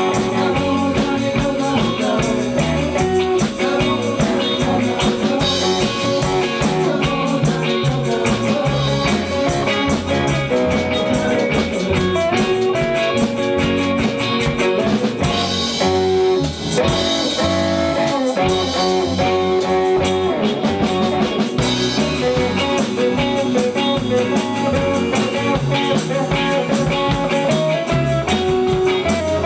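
Rock band playing live: electric guitars and bass guitar over a drum kit, in a stretch of the song without singing.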